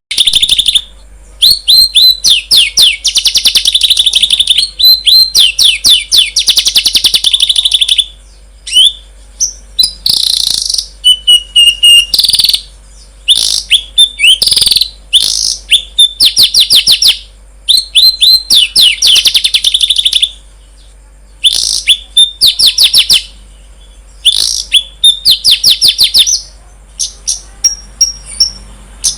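Songbird singing loud, high, rapid trills and quick runs of chips in phrases of a second to several seconds, separated by short pauses.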